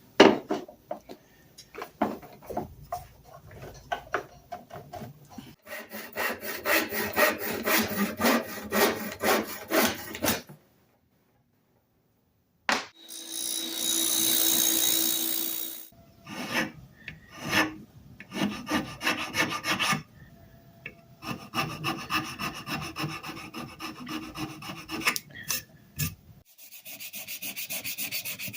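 Hand filing and sanding on an old tool: runs of rapid scraping strokes, stopping and starting, broken by a pause and by a steady burst of noise lasting about three seconds a little before the middle.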